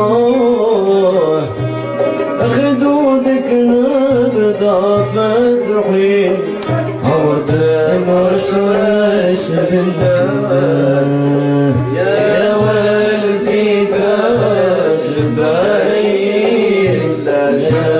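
Andalusian-style music ensemble playing a melodic passage with ornamented, wavering lines over a steady percussion beat, with no words transcribed.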